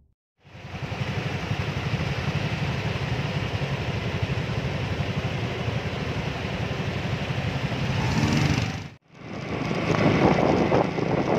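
Several small motorcycle and scooter engines idling steadily. About nine seconds in the sound cuts, and riding follows: an engine running with wind buffeting the microphone.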